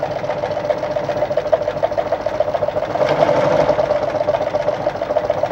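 Brother Pacesetter ZU2-B605 sewing machine running at a steady speed and sewing a straight stitch, a fast, even clatter.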